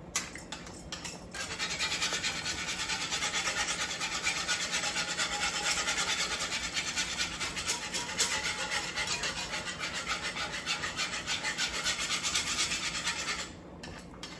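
Metal wire whisk beaten quickly back and forth in thick gravy in a cast iron skillet, the wires scraping against the pan, to whisk out lumps. The rapid, steady scraping starts about a second and a half in and stops about a second before the end.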